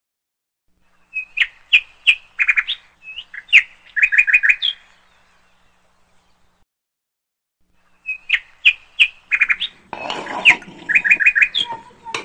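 A bird chirping: two runs of quick, high notes a few seconds apart, each ending in a rapid string of four or five notes. About ten seconds in, a short hiss of noise sounds under the chirps.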